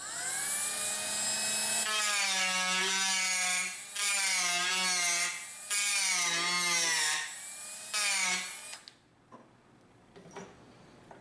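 Dremel rotary tool spinning up, then cutting into the wooden forend of a rifle stock, its whine wavering in pitch as it bites and eases off. It drops away twice briefly and stops a little before the end.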